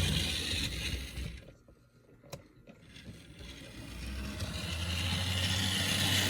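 HO-scale Bachmann Spectrum Fairbanks-Morse H16-44 model diesel locomotive running along the track, its motor, gears and wheels making a steady mechanical running noise. The noise fades almost away about two seconds in, with a single click, then grows steadily louder again, as the locomotive goes away and comes back past.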